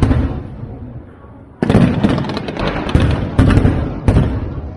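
Aerial fireworks bursting: booms dying away in the first second, then a fresh volley of sharp, crackling bursts about one and a half seconds in that fades near the end.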